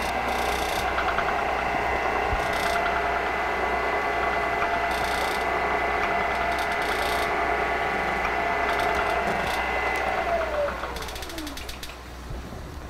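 Milling machine spindle running with a steady gear whine while a countersink cuts into a stainless steel hammer head at about 120 rpm. About ten seconds in the machine is switched off, and the whine falls in pitch and fades as the spindle spins down.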